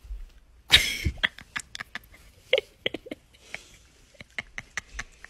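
Pet raccoon chittering: one louder breathy huff about a second in, then a quick run of short squeaky chirps and clicks.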